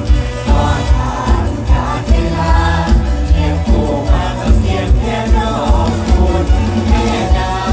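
Live Thai Isan band music played loud through a concert sound system: a steady, heavy bass-drum beat of about two to three thumps a second under a sung vocal line.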